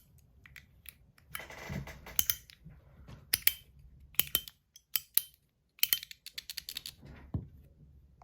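PEI plastic Musketeer fidget clicker's buttons clicking: irregular, high-pitched clicks, some with a short ring after them, with handling rustle about a second and a half in.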